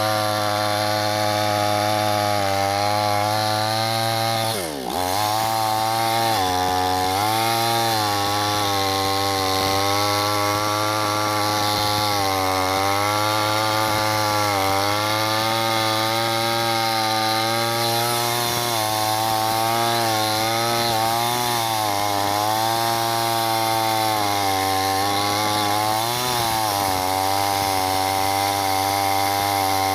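Chainsaw running steadily while cutting wood, its pitch wavering up and down as the load in the cut changes. About five seconds in, its speed drops sharply and then picks back up.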